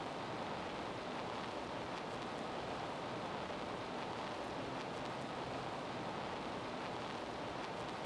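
Steady, even noise hiss that holds at one level throughout, with no speech or music.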